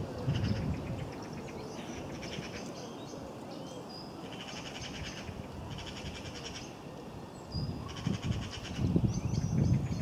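Small songbirds singing, a string of short, rapid trilling phrases repeated about every second or so, with a few thin whistles between them. Low wind rumble buffets the microphone near the start and again over the last few seconds.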